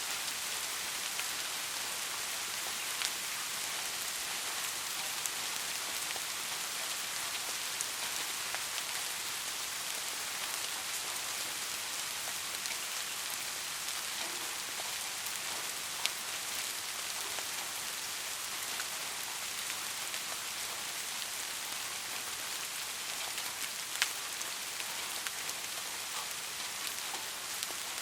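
Steady heavy rain: an even hiss of falling rain with separate drops ticking sharply now and then, a few louder hits about 3, 16 and 24 seconds in.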